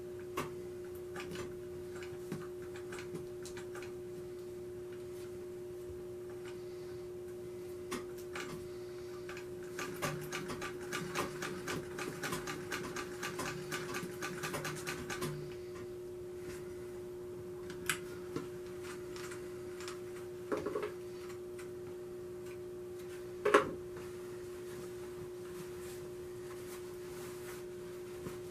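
Antique Singer treadle sewing machine stitching in a short run of rapid clicking that lasts about five seconds, starting about ten seconds in. Scattered single knocks from handling the machine and the fabric come before and after it, the loudest a few seconds from the end, all over a steady hum.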